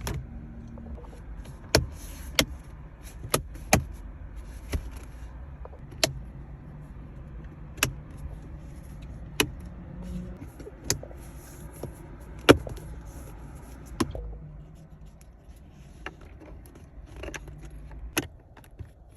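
Low steady rumble of a car, with a series of sharp clicks or knocks, most about a second and a half apart. The rumble drops away about fourteen seconds in.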